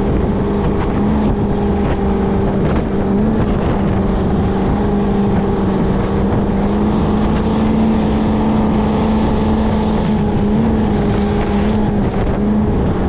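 Performance powerboat engine running at speed, a steady loud drone whose pitch shifts slightly now and then, with wind rushing over the open cockpit.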